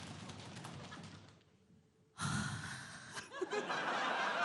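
An audience drum roll, a fast patter of many small strikes, dies away about a second and a half in. After a short hush, a loud, heavy breath is blown into a microphone: a contestant's heavy breathing, with a brief laugh-like sound in it.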